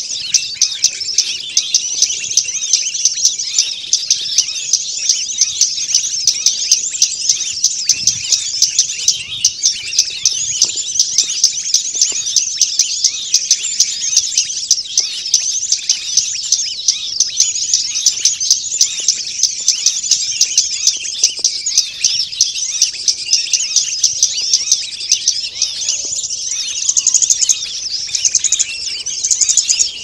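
A dense, continuous chorus of high chirps and rapid sharp ticking calls from many small birds such as sunbirds, with no pauses. This is a noisy ("ribut") bird-lure recording, made to draw wild small birds down to a trapper.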